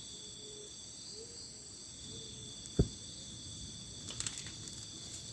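Night-time chorus of crickets and other insects, a steady high trilling throughout. Three faint short low calls come in the first couple of seconds, and a single sharp crack about three seconds in, with a few faint clicks a little later.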